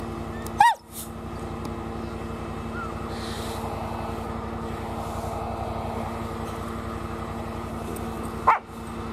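A dog barks twice, once about a second in and again near the end, over the steady running of a tracked side-by-side's engine.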